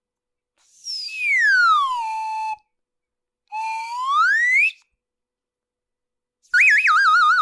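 Comedy whistle sound effects: a whistle slides down in pitch, then after a pause slides back up, and near the end a warbling, trilling whistle starts.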